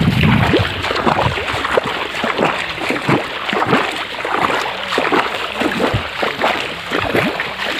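Muddy water splashing and sloshing in quick, irregular strokes.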